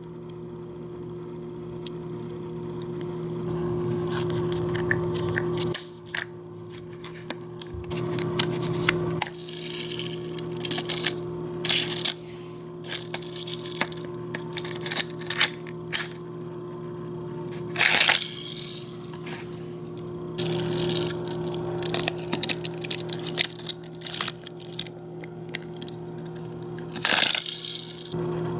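Plastic toy playset pieces and their packaging being handled: scattered clicks, rattles and rustling, with two louder rustles about halfway and near the end, over a steady low hum.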